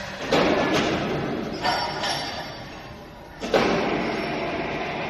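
Five heavy knocks, two pairs and then a single one, over a steady machine noise.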